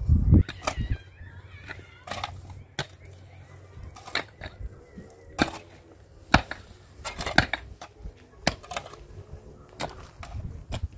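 Steel shovel scraping and scooping dry, stony soil, with irregular scrapes and knocks as the blade bites into the dirt and stones.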